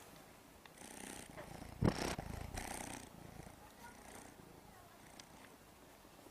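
A cat purring close to the microphone, with a sharp bump about two seconds in, after which the purring grows fainter.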